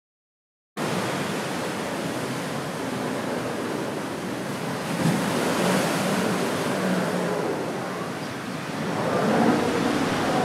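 Ocean surf washing onto a beach, a steady rush of waves that starts abruptly just under a second in.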